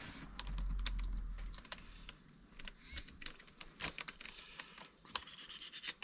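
Quick irregular light clicks and taps of small RC car hub parts and hand tools being handled during a disassembly, with a low rumble in the first second and a half.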